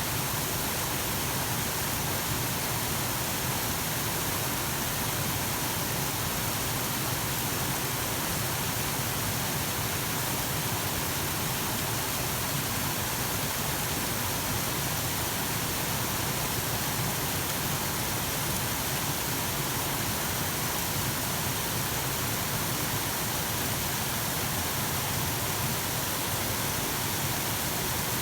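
Steady rush of a waterfall and cascading mountain creek: a dense, even wash of water noise that does not change.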